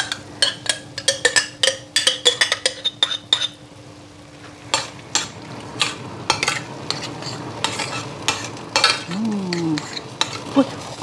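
A utensil clinking and scraping against a pan as food is stirred, in quick irregular clicks, over a faint sizzle of frying.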